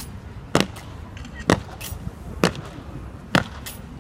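Kremlin guards' boots stamping on stone paving in a slow goose-step march: four sharp heel strikes, about one a second.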